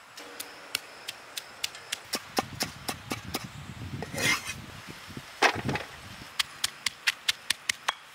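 A knife chopping ginger on a wooden log block and a stone pestle pounding garlic in a stone mortar: a steady run of sharp knocks, about three a second, with a few louder, rougher strokes around the middle.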